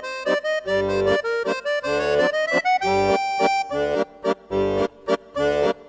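Background accordion music in a lively folk style, with a melody over bass notes and chords alternating on the beat.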